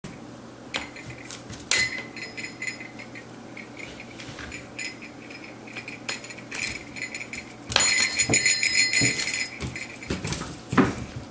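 A Shetland sheepdog puppy playing on a wooden floor, knocking at a plastic laundry basket and the clip hanging from its rim, gives scattered clicks and knocks. About eight seconds in, a louder stretch of rattling and clinking follows.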